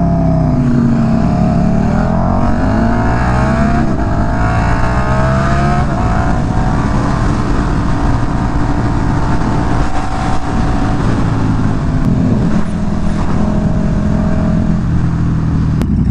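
Several motorcycle engines revving and accelerating, their rising notes overlapping through the first half, then running at a steady pitch.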